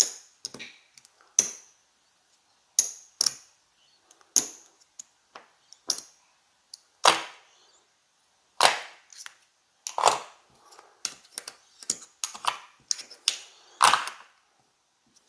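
Casino chips clacking against one another as they are picked up, stacked and set down on a craps table: a run of irregular, sharp clicks with short pauses between them.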